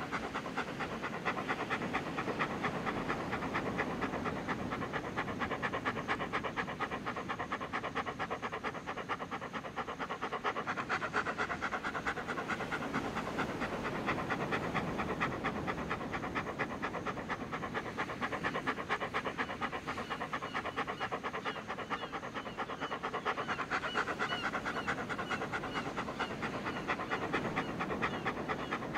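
A dog panting quickly and steadily, breath after breath, without a pause.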